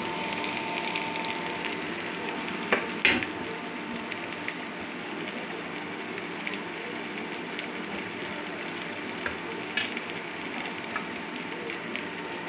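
Onion, carrot and freshly added chopped capsicum sizzling in ghee in a frying pan. A few sharp knocks stand out, the loudest about three seconds in.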